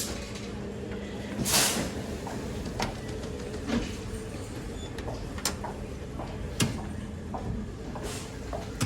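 Scattered clicks and knocks from handling a ball vending machine and its prizes, with a short rustling burst about a second and a half in, over a steady background hum.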